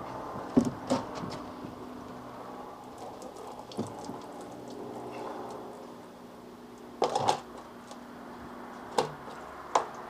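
Sharp clunks and knocks of a Seagull outboard motor being handled and set down against a plastic crate: two loud ones about half a second in, a cluster about seven seconds in, and two more near the end, over a low steady hum.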